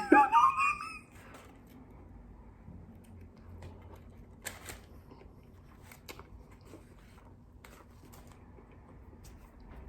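Quiet chewing of a crispy fried chicken sandwich, with a few faint crunchy clicks. It follows a brief high, gliding vocal sound in the first second.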